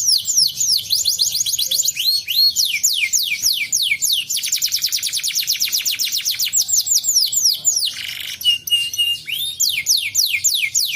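Domestic canary singing: long rapid trills of falling whistled notes, about eight a second, with a short held note about eight seconds in before the trills resume.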